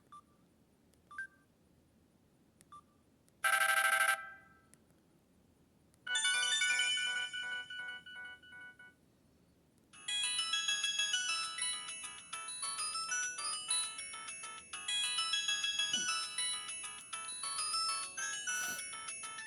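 Samsung C3011 mobile phone playing its polyphonic ringtones through its small loudspeaker. After a few faint clicks comes a short loud tone. About six seconds in, one melody plays and fades, and at about ten seconds a second, busier melody starts and keeps going.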